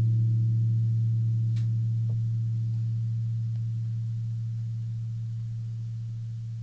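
Low struck gong ringing out after a strike, one deep steady hum with a few higher overtones slowly fading away.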